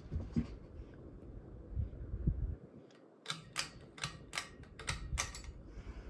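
Harbor Breeze Springfield ceiling fan running, its spinning blades giving a steady low rumble of moving air. Just past the middle, after a brief silent gap, there is a quick run of about seven sharp clicks over some two seconds.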